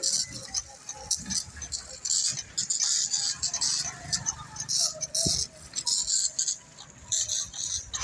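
Hot bitumen hissing from a hand-held spray lance fed by a wheeled bitumen sprayer, coming in irregular bursts over a faint low rumble, as a road base is sprayed for a surface treatment.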